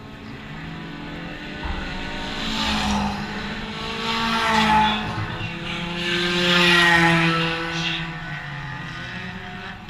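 Eco Stock race cars running past on a dirt oval, their engine notes swelling twice as cars come through the turn, loudest about seven seconds in.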